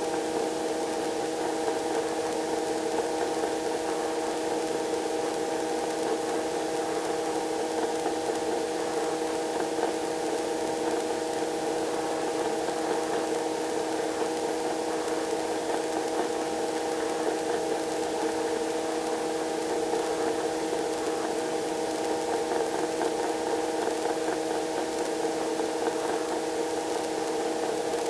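Robinson R22 helicopter in cruise flight: a steady drone of engine and rotor noise, several steady tones over a hiss, with no change in pitch.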